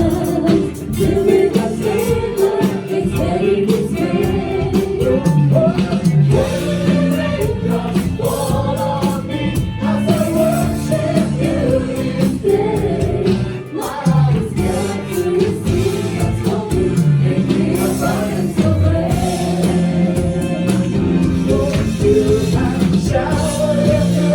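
Live gospel worship music: a band playing with voices singing together.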